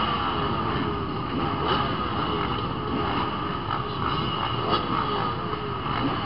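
Off-road motorcycle engines revving hard as the pack leaves the start line, their pitch climbing and falling back again and again as the bikes accelerate and shift.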